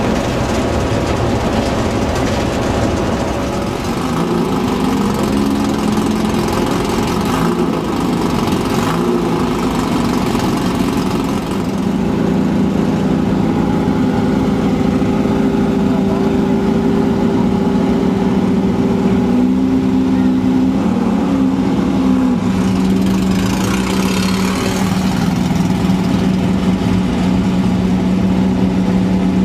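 Off-road race buggy's engine running at a fairly steady speed, with a brief change in pitch about twenty seconds in and a short burst of rushing noise a little later.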